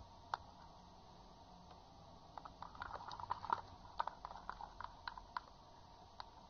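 Sticky clicking and popping of a soft-soap and salt slime being stretched and squeezed between fingers, a busy run of small wet pops from about two seconds in to about five seconds, with a few single clicks around it.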